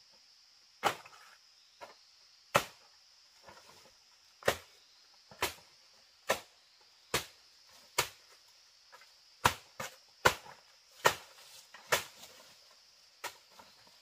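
Sharp chopping or striking blows on wood, about one a second and uneven in strength, each with a brief ring. A steady high insect drone runs behind them.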